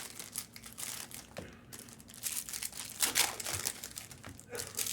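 Plastic trading-card pack wrappers crinkling in the hands with irregular rustles as packs are handled and opened.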